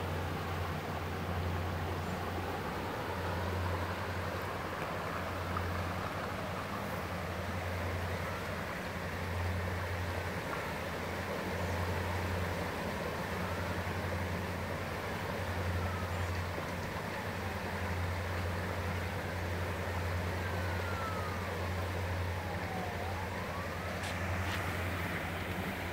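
Steady rush of swollen floodwater with a strong low hum that swells and fades every couple of seconds. A faint emergency siren wails in slow rising and falling sweeps through the middle stretch.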